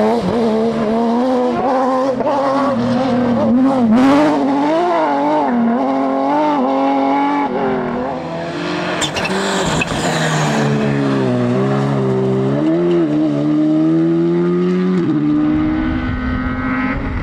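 Rally car engine revving hard, its pitch jumping up and down quickly as the throttle is worked through the gears, with a sharp crack about four seconds in. Later the engine climbs steadily in pitch for a few seconds, then cuts off sharply near the end.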